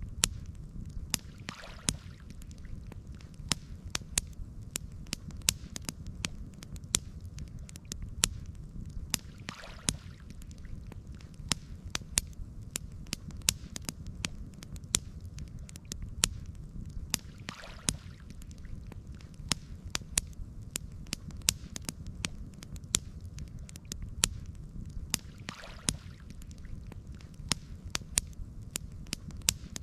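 Campfire crackling with frequent sharp pops over a steady low rumble. A soft swish comes back about every eight seconds, four times.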